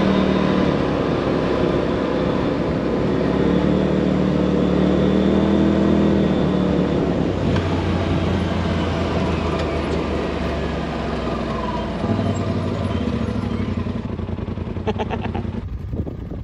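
Polaris RZR side-by-side under way on a dirt road: its engine drones continuously, the pitch wavering and climbing over the first half as the throttle changes, over a steady rumble of ride noise.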